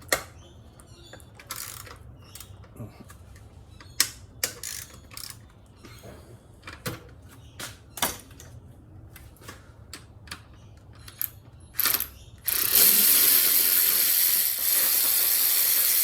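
Ratchet wrench working a manifold bolt loose, with scattered ratcheting clicks, then a loud steady whirr for the last three and a half seconds or so.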